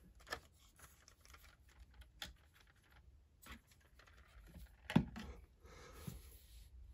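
Hands handling and turning a built Lego set: plastic bricks clicking and rattling lightly, with a louder knock about five seconds in as it is set down on the table.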